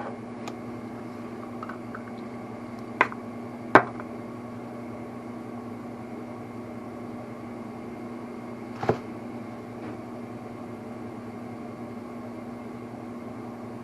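A steady low hum with three sharp clicks, about three seconds in, a second later, and again near nine seconds in, as engine parts are handled on the bench.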